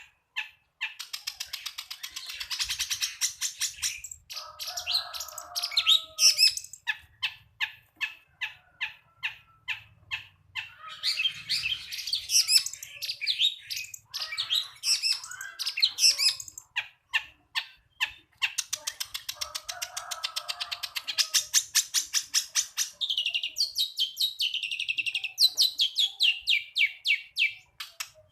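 Long-tailed shrike (cendet) singing a fast, varied song of rapid repeated notes and chattering trills in phrases with short pauses, its song filled with mimicked calls of other birds.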